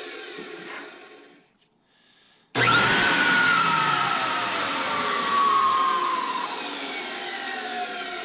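Ametek Lamb motor of a Beam central vacuum, test-run on new carbon brushes. Its whine dies away to silence, then about two and a half seconds in the motor starts abruptly with a quick rising whine and runs on, its pitch slowly sinking and its level easing. It is running cleanly, with no sparking from the new brushes.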